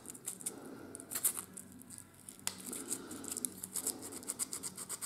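A thin folded strip of 220-grit sandpaper rubbed back and forth through a small hole in a laser-cut wooden part: light, irregular scratchy strokes, with one sharper click about two and a half seconds in. It is smoothing the hole's edges and taking off the laser-cut residue so that sliding parts run with less friction.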